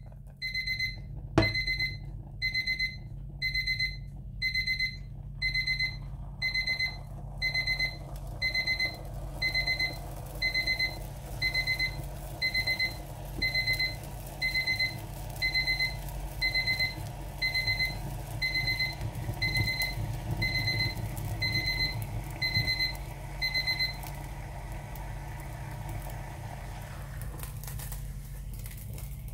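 Electronic alarm beeping: a single high beep repeated a little faster than once a second, which stops a few seconds before the end, over a steady low hum.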